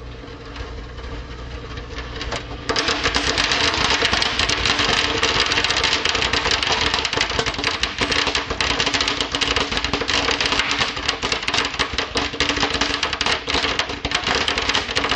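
Microwave oven running with a steady hum. About three seconds in, fireworks inside it ignite with a sudden jump in loudness and then burn with a dense, continuous crackling and fizzing.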